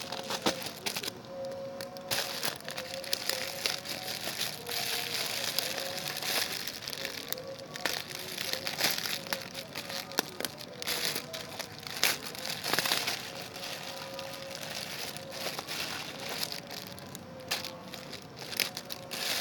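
Parcel packaging being handled and pulled open by hand: irregular crinkling, crackling and rustling.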